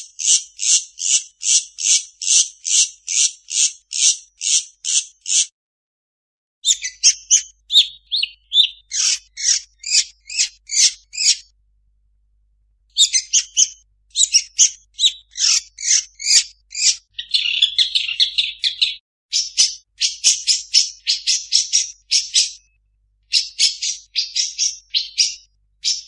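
Long-tailed shrike (cendet) singing: runs of rapid, harsh repeated notes, about three a second, in phrases of several seconds broken by short pauses. The phrases change in pattern, including a harsher buzzy stretch in the middle, as in a cendet song packed with mimicked calls.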